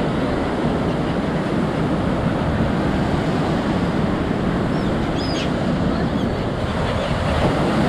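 Steady rushing of wind and sea surf, with a brief high chirp about five seconds in.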